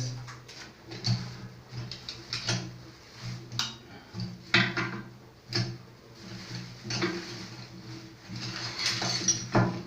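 Scattered metallic clicks and knocks from hands and tools working the plumbing while the water supply valve is shut off for a washing-machine tap repair, over a steady low hum.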